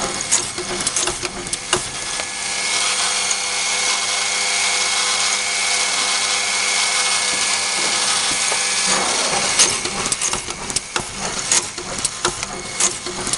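Industrial inserting and drilling machine (OMAL L1) boring into a wood panel. Its drill runs steadily for several seconds, then falls away about two-thirds of the way through. Sharp clicks and knocks from the machine's head and pneumatics come before and after the drilling.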